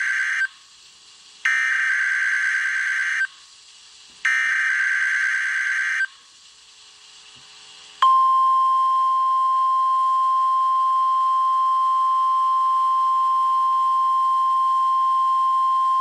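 NOAA Weather Radio emergency alert test signal: the end of one SAME digital header burst and two more full bursts of raspy data tones, each just under two seconds with a short gap between, then about eight seconds in a single steady 1050 Hz warning alarm tone.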